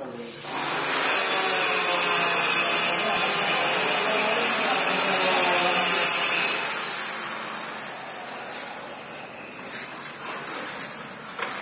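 A motorised power tool runs loudly with a high whine for about six seconds, then is switched off and its whine falls away as it spins down. Faint scattered knocks follow.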